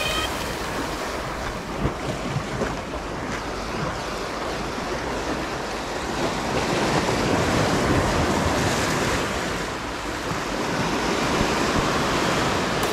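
Sea waves washing, with wind buffeting the microphone; the noise swells and eases slowly, louder in the second half.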